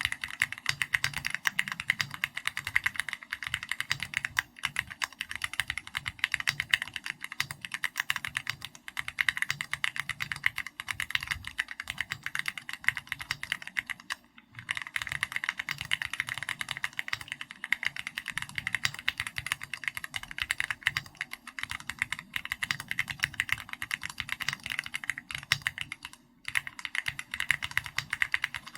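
Continuous typing on a custom mechanical keyboard with an SPM AL66B housing, Keychron Red linear switches and XVX comic-style keycaps: a dense, even run of keystroke clacks, broken by short pauses about halfway through and again near the end.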